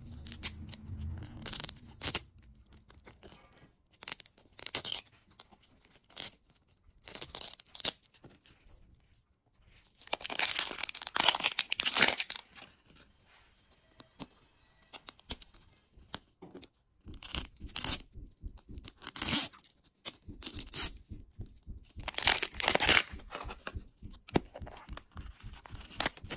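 Paper wrapper being torn and peeled off a Miniverse plastic capsule ball in many short rips, starting and stopping throughout.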